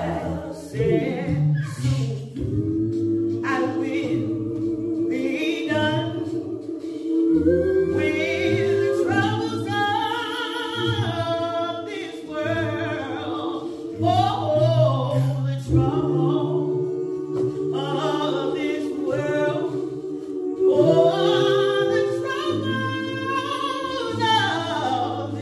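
Gospel vocal group singing in harmony without instruments, with long held lower notes under a woman's lead voice sung into a microphone.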